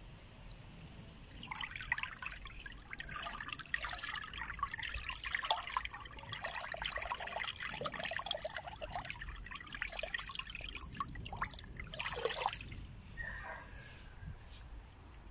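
A hand splashing and swishing through a shallow, flowing stream: irregular splashes and trickling that start about a second and a half in and die away a couple of seconds before the end.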